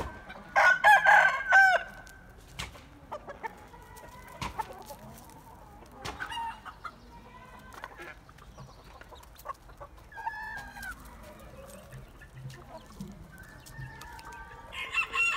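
Free-range chickens and roosters clucking and calling, with a loud burst of squawking calls about a second in, then scattered quieter calls.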